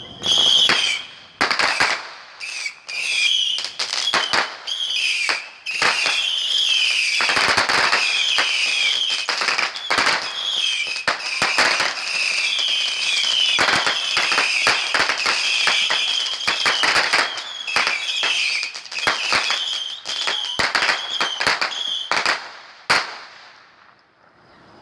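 Consumer fireworks going off in a rapid barrage of bangs and crackles over high, warbling whistles for over twenty seconds. The barrage ends with a single last bang shortly before the end.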